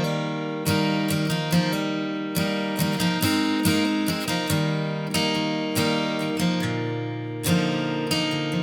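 Background music: strummed acoustic guitar playing a steady chord pattern.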